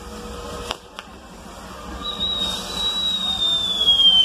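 Fireworks on a castillo firework tower: two sharp pops about a second in, then a long whistle that starts about two seconds in, slowly falls in pitch and grows louder.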